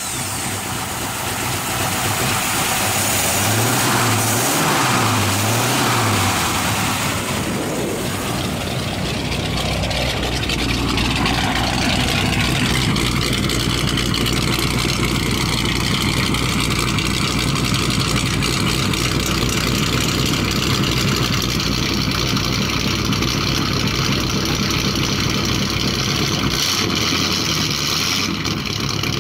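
1953 Mercury flathead V8 with a 3/4-race camshaft and decked heads, running: its revs rise and fall a few times in the first several seconds, then it settles into a steady idle, heard at the twin tailpipes in the second half.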